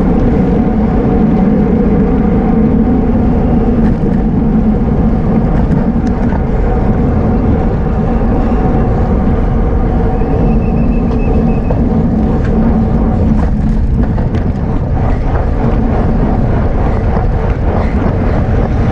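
Steady wind and rolling noise of a bicycle being ridden at speed, a loud low rumble with a steady hum over it.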